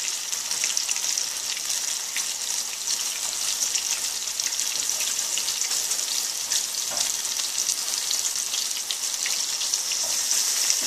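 Flour-coated pork chops frying in hot oil in a skillet, pieces just laid in: a steady sizzle with fine crackling.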